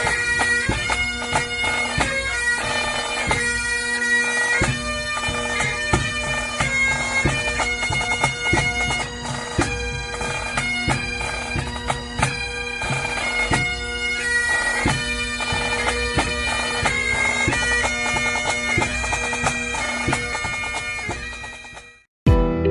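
Bagpipes playing a tune on the chanter over steady, unbroken drones, fading out near the end.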